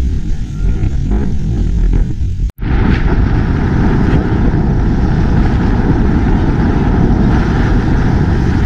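Wind rumbling on the microphone, then after a brief cut-out about two and a half seconds in, a steady rush of wind and engine noise from a moving Bajaj Pulsar 200 NS motorcycle.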